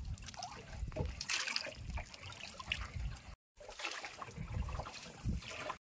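Lake water splashing and trickling around a moving boat, an irregular sound with no steady engine note, broken twice by a brief dead silence.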